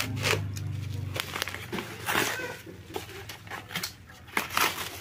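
Parcel wrapping of brown paper and black plastic being torn open by hand: a few short rips with crinkling in between.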